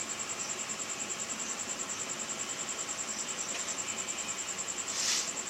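Insect, likely a cricket, trilling in fast, even high-pitched pulses of about ten a second, with a short hiss about five seconds in.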